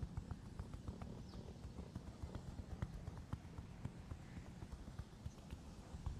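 Hands tapping and patting during a head and body massage: a fast, uneven run of dull thumps, several a second.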